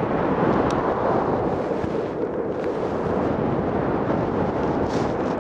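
Strong wind buffeting the microphone of a camera moving on an electric unicycle: a steady, low rumbling rush with no break.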